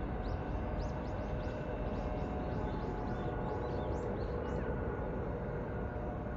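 Fire-department helicopter's steady drone, a low rumble with faint steady whine tones. Over it, a small bird gives a quick series of short high chirps for the first four or five seconds.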